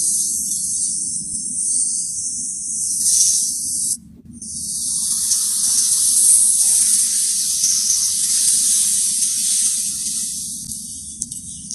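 Cobra hissing: a long, loud hiss that breaks off about four seconds in, then a second long hiss that fades near the end, over a low steady rumble.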